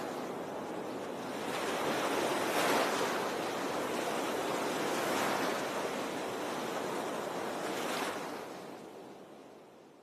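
Ocean surf: waves washing in, in swells about every two and a half to three seconds, fading away near the end.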